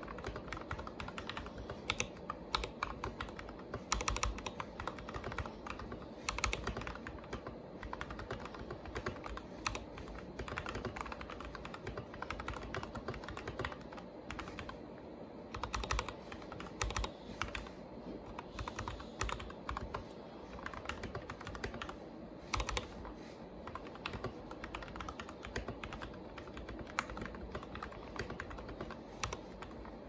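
Typing on a TM680 mechanical keyboard fitted with milky black switches and an Akko jelly black spacebar: a steady, dense run of key clacks, with a few louder strokes scattered through.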